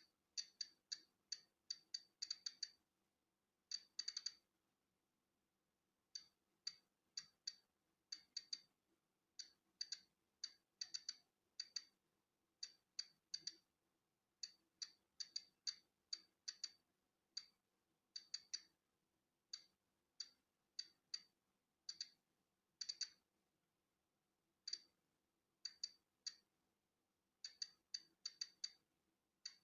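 Polon EKO-C digital Geiger counter clicking at irregular intervals, each sharp high click one count of natural background radiation. The clicks come singly and in quick little runs, with pauses of a second or so between groups.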